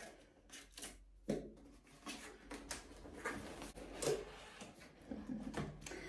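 A cardboard mailer box being opened by hand: irregular scrapes, rustles and light knocks of the cardboard as the lid and flaps are worked open.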